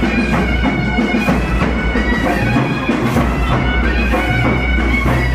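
Nadaswaram, the South Indian double-reed pipe, playing a sustained melody over thavil drum strokes. This is the traditional auspicious music played at an opening ceremony.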